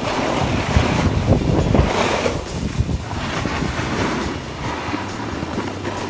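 Wind buffeting the microphone while moving down a ski slope, with a surging hiss of edges scraping over packed snow. It is loudest in the first two seconds or so.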